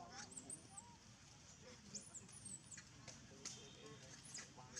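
A bird chirping faintly in short, high, rising-and-falling notes, in three brief groups: near the start, about two seconds in, and near the end.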